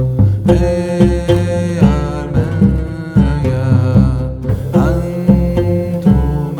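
Background music with a steady drum beat, a sustained drone and a melodic line that bends in pitch.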